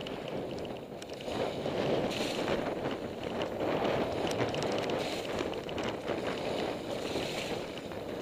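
Mountain bike descending a dirt forest trail at speed: wind rushing over the microphone and the tyres rumbling over the ground, with scattered light clicks and rattles from the bike.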